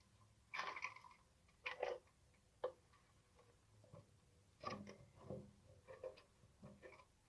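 Scattered light handling noises: short clicks, taps and rustles at irregular intervals, with one sharp click a little under three seconds in.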